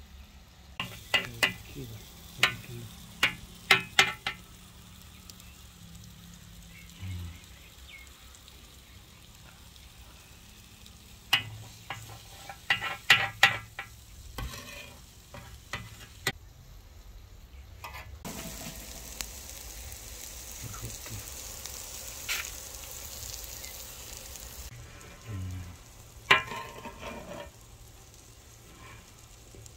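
Beaten eggs sizzling as they fry on a large flat griddle, with clusters of sharp metallic clicks from a metal utensil striking and scraping the griddle near the start, again a little before the middle, and near the end. The hiss of the frying grows louder for several seconds in the second half.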